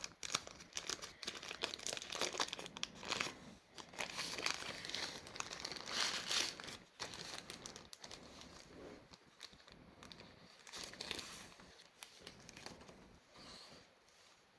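Packaging being unwrapped by hand: crinkling and tearing of wrapping material. The noise is busiest during the first half and gets quieter after about seven seconds.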